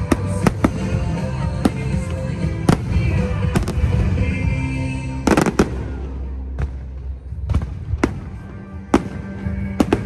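Fireworks going off in irregular single bangs, with a dense burst of crackling about halfway through, over background music.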